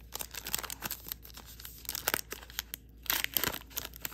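Foil wrapper of a trading-card pack being torn open and crinkled by hand: a crackling rustle, loudest about three seconds in.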